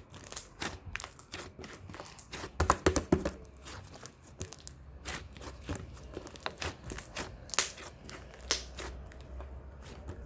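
Glitter slime being squeezed and worked by hand, making irregular wet clicks and pops, with a louder cluster of them about three seconds in.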